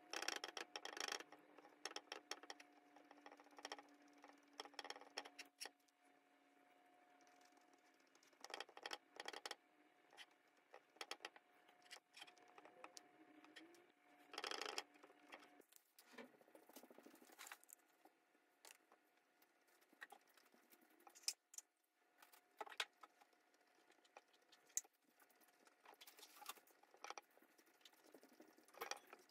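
Faint scratchy taps and scrapes of a paintbrush dabbing and stroking acrylic paint onto stretched canvas, in short clusters of quick strokes with pauses between.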